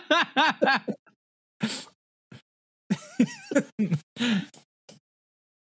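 A person's voice making short wordless sounds and mumbles in two spells, with a short breathy burst between them.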